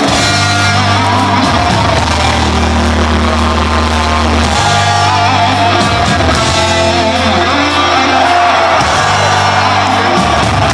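Live metal band playing loud and steady: distorted guitars, bass and drums, with a vocal line over them, as heard in a loud concert recording.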